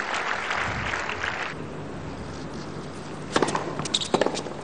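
Crowd applause that cuts off abruptly about a second and a half in, then a tennis ball bounced several times on a hard court, sharp short knocks in quick succession near the end, as the server readies to serve.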